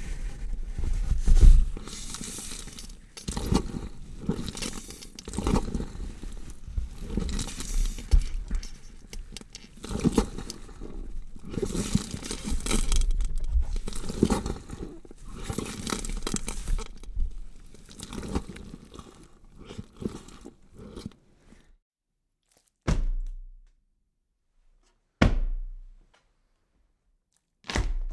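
Gore sound effect of sawing and cutting through flesh: irregular crunching, scraping and tearing strokes for about twenty seconds, then three separate heavy thuds near the end.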